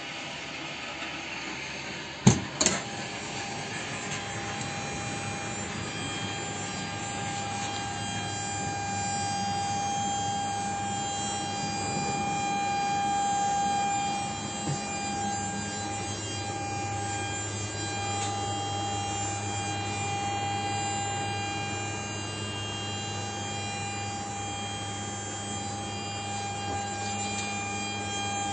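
Steady electrical machine hum in an electric locomotive, a low hum with a steady whine above it, from its running auxiliary machinery. Two sharp knocks come about two seconds in.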